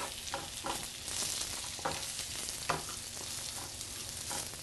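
Sliced mushrooms sizzling as they sauté in a nonstick frying pan, stirred with a slotted wooden spatula that knocks against the pan a few times.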